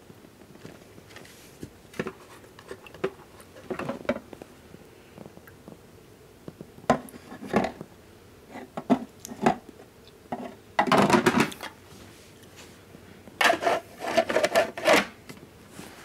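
Handling noise on a plastic humidifier: irregular light knocks, taps and rubbing, with a louder clatter about eleven seconds in and another run of clattering near the end.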